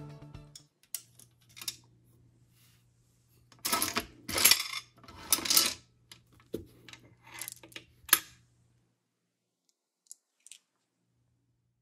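Vintage Silver King penny gumball machine being worked: a series of metallic clicks and short rattles of the coin and vending mechanism, with the loudest rattles coming in a cluster a few seconds in.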